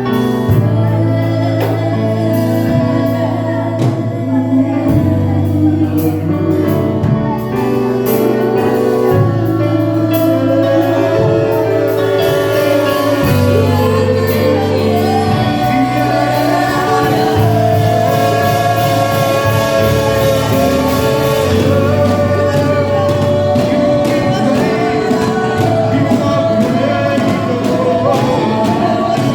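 Church worship team singing a gospel worship song with live band accompaniment: voices over a bass line that changes note every few seconds, with regular cymbal ticks.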